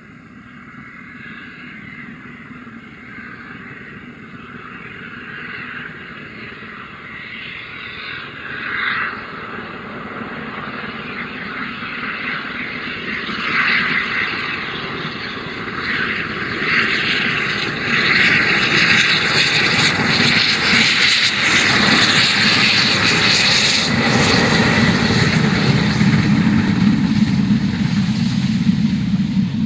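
LMS Black Five 4-6-0 steam locomotive, a two-cylinder engine, working hard with a rapid exhaust beat that grows steadily louder as it approaches. It is loudest in the last third, where a low rumble from the train passing close joins the exhaust.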